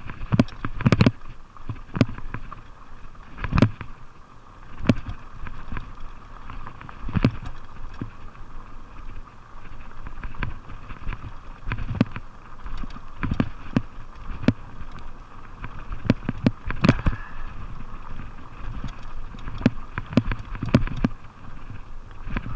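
Fuji Beartooth 27.5+ plus-tyred mountain bike descending a rocky dirt trail: a continuous rumble of tyres on dirt, broken by irregular sharp knocks and rattles as the bike hits rocks and bumps.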